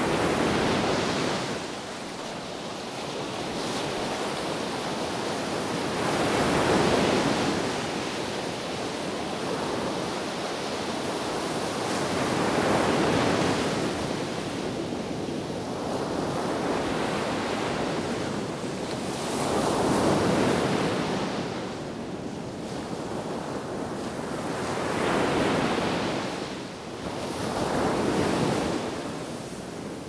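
Sea waves breaking on a sandy beach. The surf swells and ebbs about six times as successive waves break and wash up the sand.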